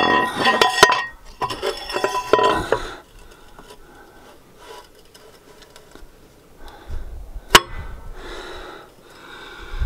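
New metal cylinder liner clinking and ringing against the Cummins ISX engine block as it is lowered into its bore. After a quiet stretch, a single sharp knock comes as it is pressed down to seat.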